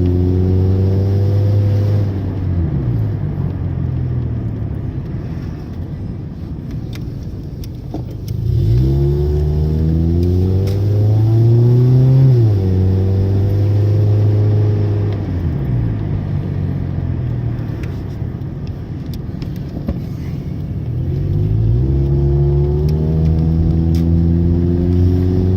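Car engine heard from inside the cabin while driving. It picks up speed twice with its pitch rising, and drops back between, as it would at gear changes or when easing off.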